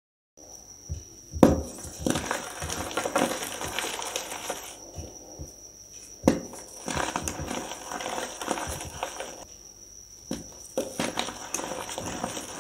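Reformed gym chalk hearts, dyed red with sand and glitter mixed in, being crushed by hand. Two sharp snaps, about a second and a half in (the loudest) and again near the middle, are followed each time by dusty, crunchy crumbling of the powder between the fingers.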